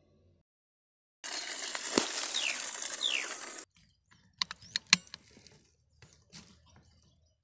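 A shot bird flapping its wings against dry soil: a loud rustling that starts and cuts off abruptly, with a sharp knock about two seconds in and two short falling chirps. After the rustling stops, a few sharp clicks follow.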